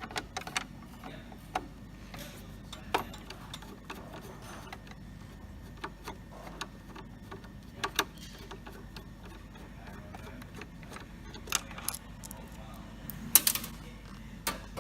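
Scattered metallic clicks and clinks of a screwdriver working out the screws that hold a note acceptor in a vending machine door, with a louder cluster of clicks near the end.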